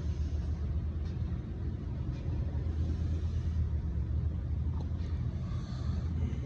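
Honda lawn mower's small four-stroke engine running steadily after the repair, a low even hum with a few faint ticks.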